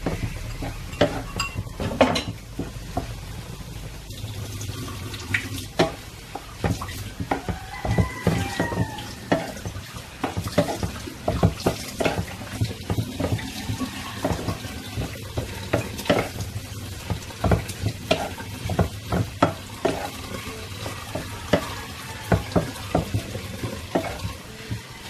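Wooden spatula scraping and knocking against a nonstick frying pan as scrambled egg is stirred, with a steady frying sizzle underneath. The knocks come irregularly, several a second.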